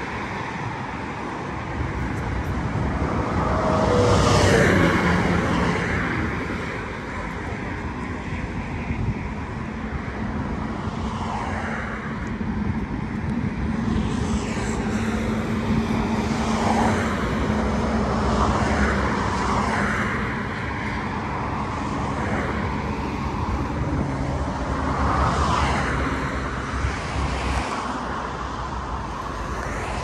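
Road traffic going by: a vehicle passes loudly about four seconds in, its engine note falling as it goes. Further vehicles follow, with a steady low engine drone through the middle.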